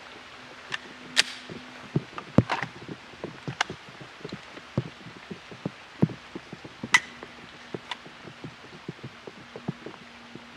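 Irregular light tapping of rain, with three sharper, louder clicks about a second, two and a half seconds and seven seconds in.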